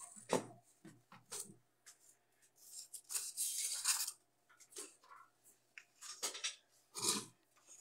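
Paper sheets rustling and sliding as they are handled, in short irregular bursts with a longer stretch about three seconds in.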